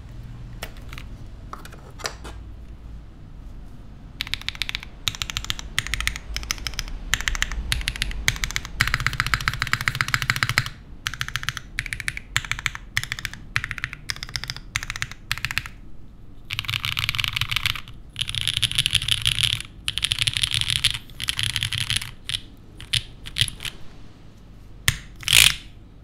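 Typing on a SINGAKBD Koalakorn mechanical keyboard with lubed Gateron Raw linear switches, an aluminium plate and GMK keycaps. Scattered keystrokes at first, then steady typing with two fast runs, thinning to single presses and one louder clack near the end.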